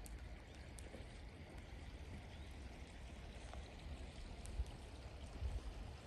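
Faint, steady outdoor hiss with a low rumble underneath and a faint trickle of running water, as from a small roadside drainage channel.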